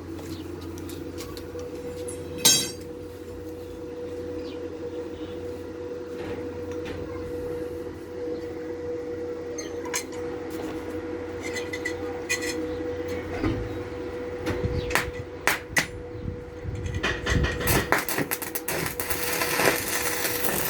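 Workshop metalwork: steel parts knocked and handled, with one loud hammer-like strike about two and a half seconds in and a run of faster clattering near the end. A steady machine hum runs underneath; its low part stops about halfway through.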